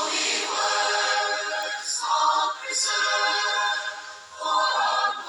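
Sung vocal tones held on steady pitches, starting suddenly and breaking briefly about two, three and four and a half seconds in.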